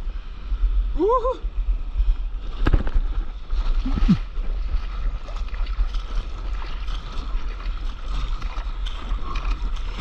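Sea water rushing and splashing around a board riding a small wave, heard at water level with a low wind-and-water rumble on the microphone. A short arching high call sounds about a second in, and a sharp knock a little later.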